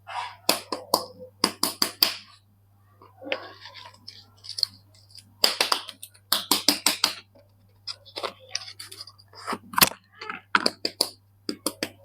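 Soap packaging being unwrapped by hand: irregular bursts of crinkling and crackling wrapper, in clusters of sharp crackles with short pauses between them, over a faint steady low hum.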